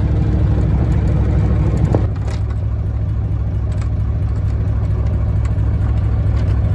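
Yamaha boat engine idling with a steady low rumble. There is a small click about two seconds in, after which it runs a little quieter.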